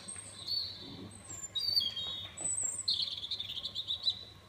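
Bird chirping: several short, high whistled chirps, then a longer warbling trill about three seconds in.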